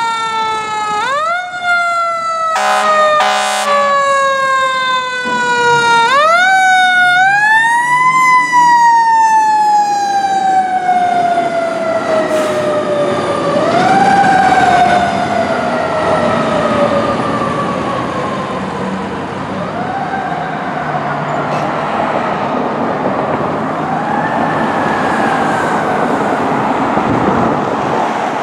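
A Pierce fire engine's mechanical siren, repeatedly winding up quickly and then falling slowly in pitch, with two short air-horn blasts about three seconds in. The truck is running its warnings for an emergency (code 3) response. The siren grows fainter as the truck drives away.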